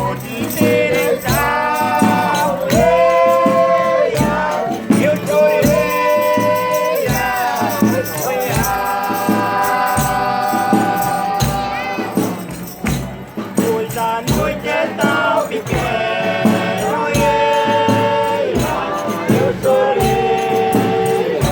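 Folia de Reis singers chanting in long, drawn-out phrases, several voices holding notes together, over steady hand percussion.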